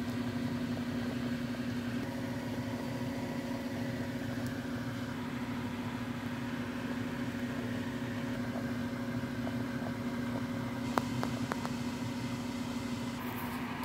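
A small motor's steady hum, with a few light clicks about eleven seconds in.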